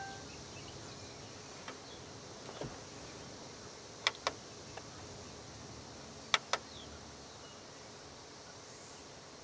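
Plastic clicks of buttons being pressed on an aftermarket car stereo's faceplate: two quick double clicks, about four seconds in and again about six seconds in, with a few fainter ticks, over a faint steady hiss.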